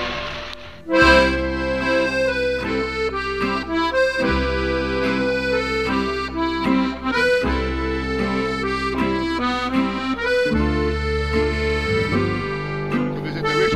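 Accordion music: a melody over held bass notes that change about every three seconds. It starts about a second in, after a brief dip in level.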